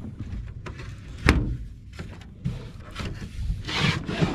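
Rubbing and bumping handling noise aboard an aluminum jon boat, with one sharp knock about a second in, over a low steady rumble of wind and water.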